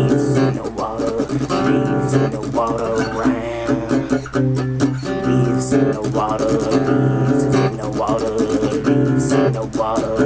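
Acoustic guitar strummed in a steady rhythm, the chords changing every second or two.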